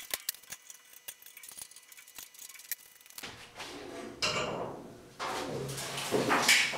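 Metal clinking and light rattling from a 1973 Toyota Celica body shell on an engine-stand rotisserie as it starts to roll over. About three seconds in, louder scraping and creaking surges in as the shell swings round on its pivots.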